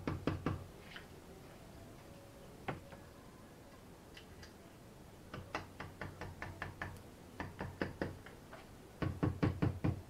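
Hammer tapping the small timing sprocket onto the crankshaft nose of a Skoda 105 engine block: a few quick knocks at the start, a single knock a few seconds in, then runs of fast, light taps through the second half.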